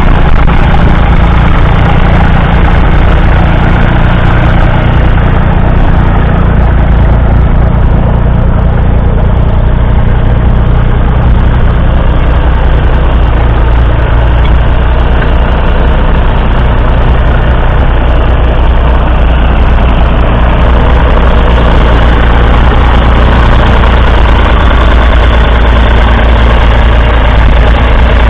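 1970 Massey Ferguson 135's 2.5-litre three-cylinder Perkins diesel engine running steadily under load while the tractor pulls a two-furrow reversible plough through the soil.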